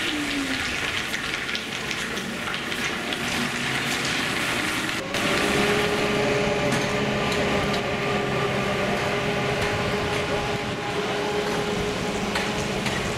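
Steady outdoor hiss, with a low steady hum joining about five seconds in.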